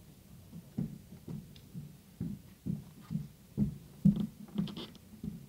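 A string of dull, low thumps and knocks, about two a second and uneven in strength, picked up by a desk microphone. A few crisp, papery clicks come near the end.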